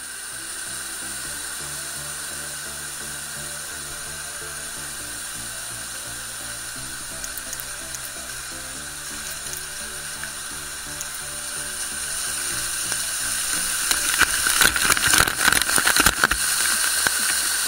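Background music of slow held chords over the steady rush of a waterfall. In the last few seconds the waterfall pours straight onto the camera, and a dense crackle of water splashes grows louder.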